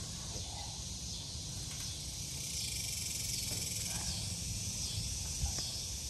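A steady high-pitched insect chorus that swells and fades in a regular pulse, over a low rumble. A few light knocks come from the metal garden arch being handled, the loudest about five and a half seconds in.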